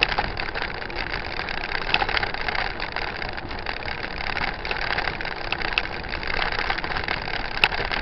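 Mountain bikes rolling along a dirt road: steady tyre and wind noise, with a few sharp clicks and rattles from the bike.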